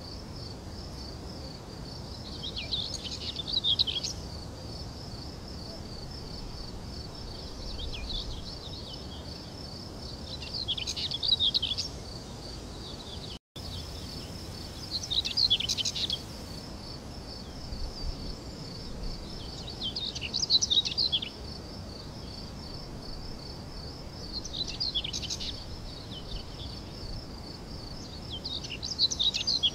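Crickets trilling steadily, while a songbird breaks in with short bursts of chirping song every four or five seconds. The sound cuts out for an instant about halfway through.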